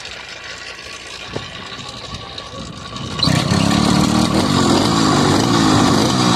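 A motorcycle engine starts about three seconds in, after some quieter mechanical clicking, and then runs loud with a slightly wavering pitch.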